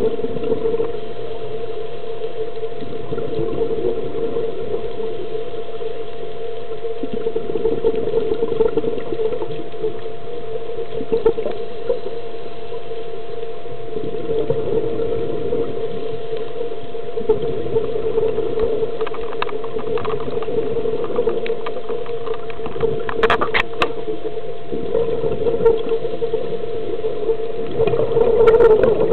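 Underwater sound through a camera housing: a steady hum, with a scuba diver's regulator breathing and exhaled bubbles rising and falling every few seconds. A few sharp clicks come about two-thirds of the way through, and the bubbles are loudest near the end.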